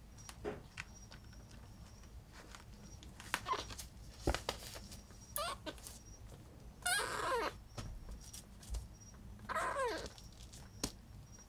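Two-week-old kitten mewing: a few short high cries, a longer wavering cry about seven seconds in, and a falling cry near the end, amid faint scattered taps.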